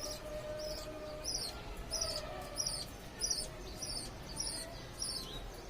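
Parrot giving short, high-pitched chirps, repeated evenly about one and a half times a second.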